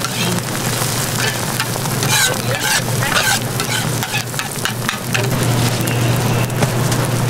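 Egg and vegetable toast patties sizzling on a flat-top griddle, with a metal spatula scraping and clacking on the griddle plate, the scrapes thickest a couple of seconds in. A steady low hum runs underneath.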